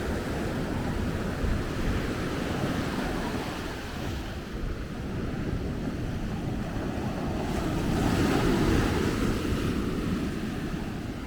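Ocean surf washing onto a beach, a steady wash that swells to its loudest about eight seconds in as a wave breaks, with wind buffeting the microphone.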